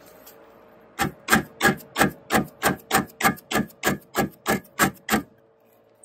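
Rhythmic rasping strokes, about three a second, that start about a second in and stop about a second before the end.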